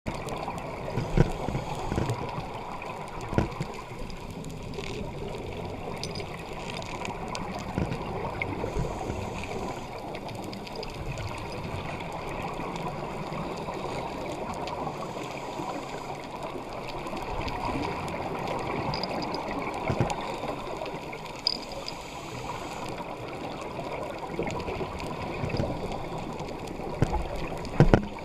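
Underwater ambience heard through a dive camera's housing: a steady, muffled rush with gurgling from scuba divers' exhaled bubbles. A few sharp knocks come about a second in, after about three seconds, around twenty seconds, and near the end.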